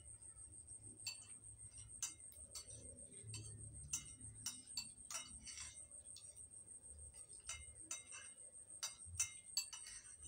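Spoons clinking and scraping against plates as two people eat: light, irregular clinks, a couple a second, some louder than others. A faint, steady, high-pitched pulsing tone sits underneath.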